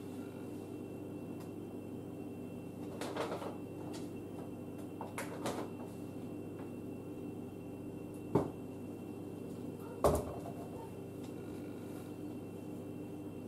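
Household items being handled: a few knocks and clatters, like a cupboard or product boxes being moved, the sharpest about eight and ten seconds in, over a steady low hum.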